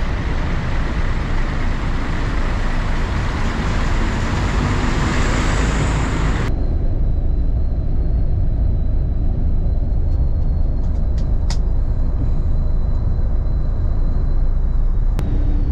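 Steady engine and road rumble of a bus on the move. Its hiss drops away abruptly about six and a half seconds in, leaving a lower rumble.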